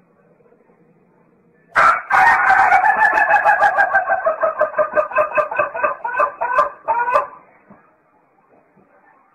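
A white rooster crowing. It gives one long crow of about five seconds, starting about two seconds in. The crow sinks slowly in pitch, has a rapid flutter through it, and breaks off sharply.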